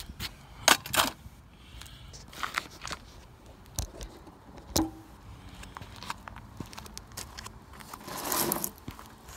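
Handling noise: scattered clicks, knocks and scrapes of objects being moved about, with a longer scraping rustle about eight seconds in.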